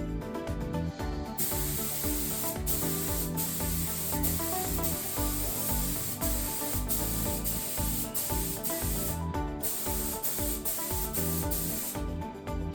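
Automotive paint spray gun hissing steadily as it lays colour on a car body. The hiss starts about a second in and stops briefly once near the end, over background music.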